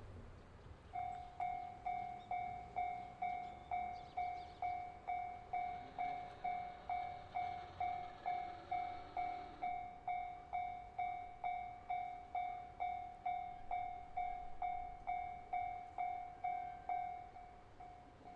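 Japanese railroad-crossing alarm ringing: an even electronic 'kan-kan' tone struck a little over twice a second, each strike sharp and fading, starting about a second in. A broader rushing noise swells underneath for a few seconds midway.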